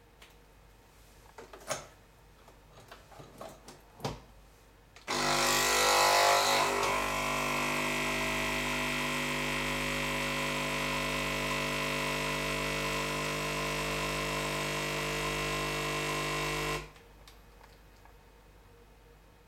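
A few light clicks and knocks, then a Nespresso Pixie espresso machine's vibration pump buzzing steadily for about twelve seconds as it brews an espresso, rougher and louder for the first couple of seconds before settling, and cutting off suddenly at the end of the shot.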